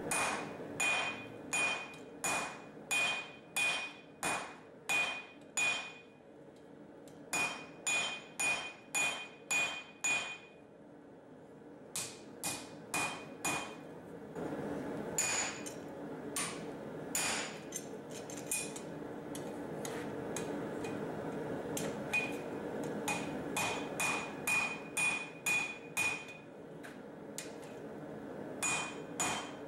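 Hand hammer striking a red-hot steel bar on the anvil to thin it out, in runs of blows about two a second, each with a bright metallic ring, broken by short pauses between runs.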